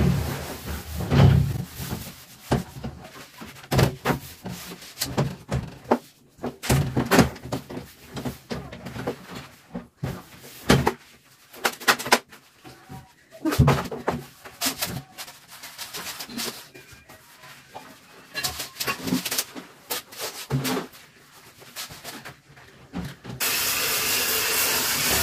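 Cleaning inside a shower cabin: irregular knocks, clatters and rubbing as the walls and tray are scrubbed. Near the end a steady, loud hiss starts.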